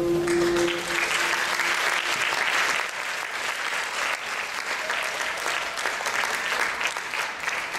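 Audience applauding at the end of a dance piece, the last held note of the music dying away about a second in. The clapping fades near the end.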